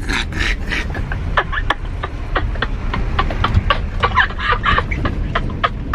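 Vehicle cabin riding over a rough, muddy road: a steady low rumble of the running vehicle with frequent knocks and rattles from the bumps.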